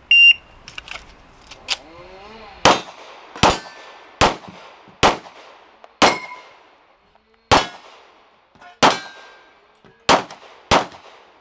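Shot-timer start beep, then a pistol fired nine times at an uneven pace, the first shot about two and a half seconds in. A couple of the shots are followed by the brief ring of a hit steel target.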